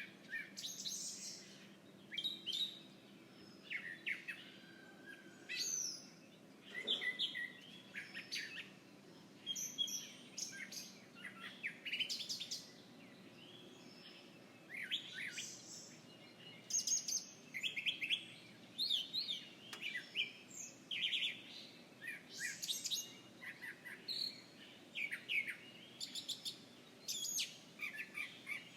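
Several songbirds chirping and singing, short bright calls in quick phrases one after another, with a faint steady background hum.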